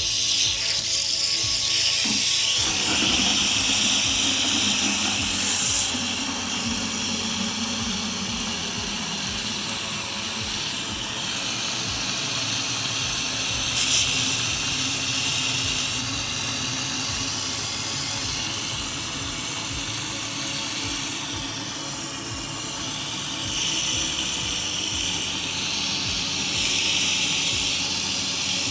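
Water running from an outdoor wall tap in a steady stream, pouring into a plastic jug held beneath it.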